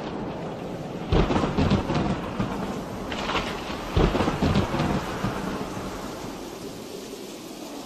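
Steady rain with low rumbles of thunder, the two loudest about a second in and about four seconds in; the rain eases off toward the end.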